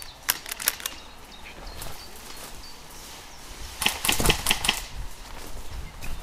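Footsteps through dry undergrowth, with twigs crackling and leaves and branches brushing past. There are a few sharp crackles in the first second and a louder cluster of crackling rustles about four seconds in.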